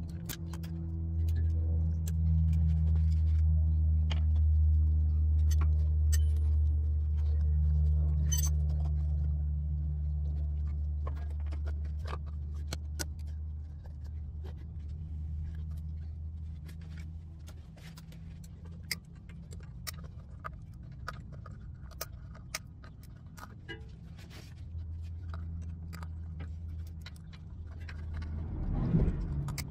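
Low engine rumble of a nearby vehicle, loud through the first half and fading after, over scattered light clicks and rattles as the rubber rack-and-pinion bellows boot is worked along the rack by hand.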